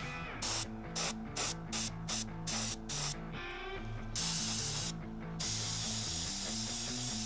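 Airbrush spraying paint in about seven quick short bursts, then two longer sprays over the last three seconds.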